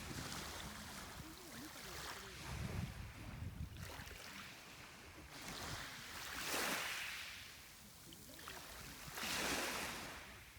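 Sea waves washing onto the shore, each one swelling and fading, about every three seconds.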